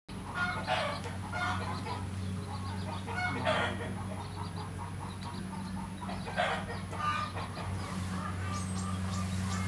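Chickens clucking: a handful of short calls spread over several seconds, over a steady low hum.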